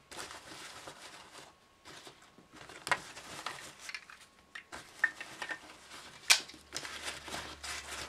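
Hands rustling the fabric of a backpack's front pocket as small items are pushed back into it, with a few sharp clicks and knocks, the loudest about six seconds in.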